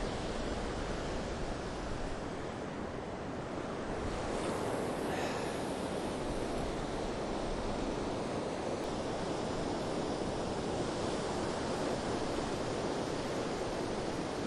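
Pacific surf breaking and washing up a sandy beach as a steady rushing wash, with wind noise on the microphone.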